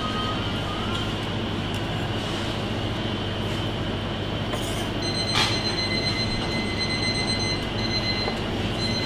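Steady background noise of a working commercial kitchen with a low hum. About five seconds in there is a knock, followed by a thin high-pitched whine that breaks off and returns several times.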